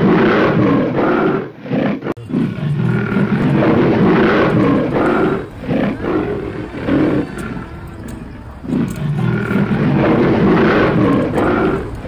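Lion roars repeated in loud swells about every second or so.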